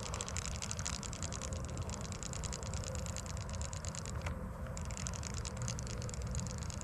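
Wind buffeting the microphone in a low, fluttering rumble, with a dense, fast, high ticking that briefly drops out about four seconds in.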